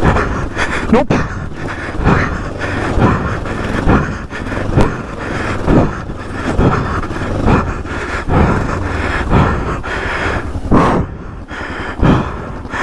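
A person breathing hard after heavy exertion, with repeated rhythmic huffs about two a second.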